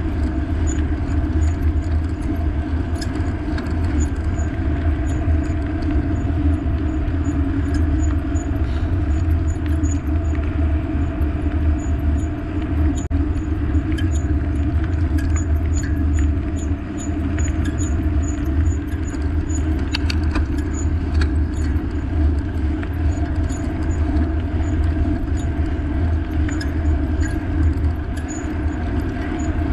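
Steady road and wind noise of a bike under way, a continuous low rumble with faint, scattered high ticks.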